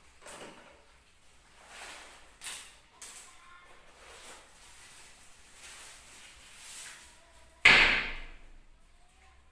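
Packaging being handled while drone propellers are unpacked: small rustles and clicks, then one loud sudden noise near the end that dies away within about a second.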